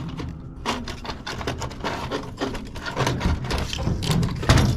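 Clicks, knocks and clatter of metal parts being worked by hand while taking apart a golf cart charger, with a louder knock near the end.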